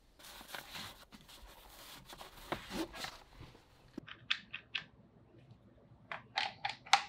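Rustling and scraping as a cloth tool pouch is pulled from among stacked plastic tool cases. From about four seconds in, a run of short plastic clicks as a laser level is fitted onto a tripod mount, the loudest click near the end.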